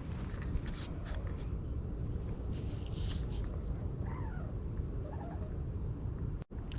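Steady high-pitched drone of crickets over a low, even background rumble, with a few brief rustles and a couple of faint bird calls. The sound cuts out for a moment near the end.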